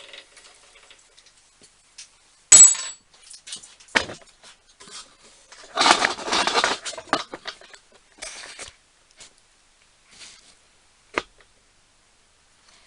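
Metal parts and tools being handled on a workbench: a sharp clink with a brief ring, a knock, a rattling scrape and scattered clicks.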